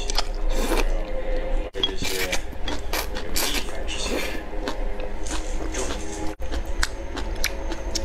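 Close-miked eating of spicy noodle soup: noodles slurped from chopsticks in several wet sucking pulls, with chewing between, over a low steady hum.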